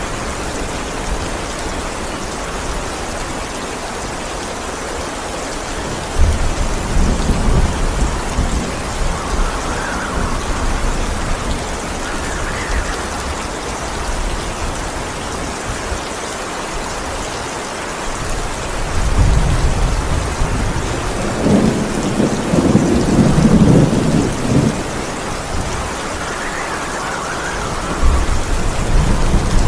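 Steady heavy rain with rolling thunder. A low rumble breaks in suddenly about six seconds in, a longer, louder roll comes in the second half, and another rumble starts near the end.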